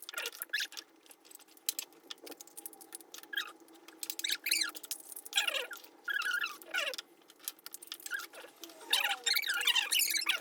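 Mouth sounds of eating pani puri: crisp puri shells crackling and crunching between the teeth, with wet squeaky slurps of the spiced pani. A faint steady hum runs underneath.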